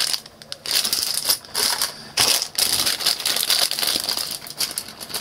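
Clear plastic zip bag crinkling in the hand, with the small wooden game tokens inside it clicking and rattling against each other as it is turned over and moved.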